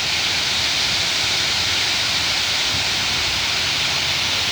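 Steady rushing of water pouring down an artificial rock waterfall.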